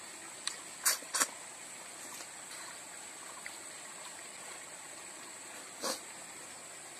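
Eating sounds from a person eating by hand: short, sharp mouth sounds, three within the first second and a half and one near the end, over a steady background hiss.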